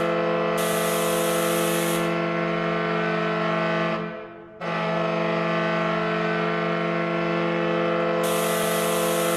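New Jersey Devils 2012 playoff overtime goal horn: a deep, steady arena horn blast that cuts out briefly about four seconds in and then sounds again, with a hiss coming and going above it.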